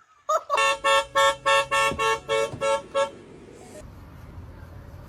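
A horn sounding in a quick run of about ten short, evenly spaced beeps, about four a second, which stops after about two and a half seconds.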